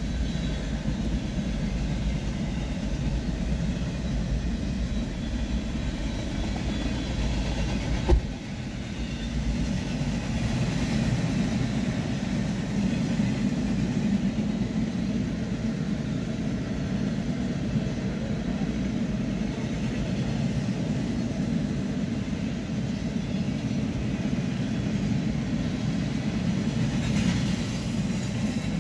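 Empty centerbeam and bulkhead flatcars of a freight train rolling past, a steady rumble of steel wheels on rail, with a single sharp knock about eight seconds in.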